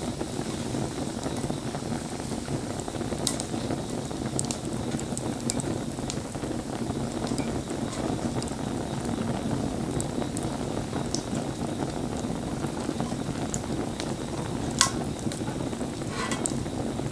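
Wood campfire burning with a steady crackle and scattered sharp pops from the burning wood, one louder pop near the end.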